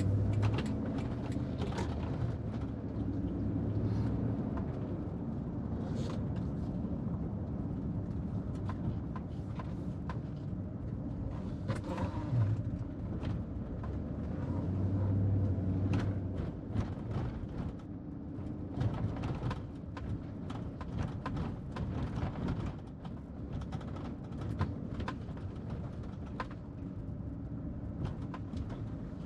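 Car being driven, heard from inside the cabin: a steady low engine and road rumble with scattered small knocks and rattles.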